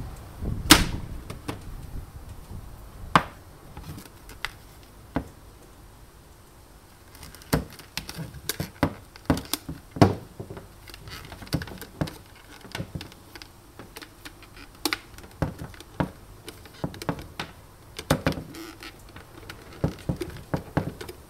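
Plastic egg cooker parts knocking and clicking against each other and the wooden table as the lid is lifted off and the base is handled and turned over. A run of separate knocks, the loudest about a second in and about ten seconds in.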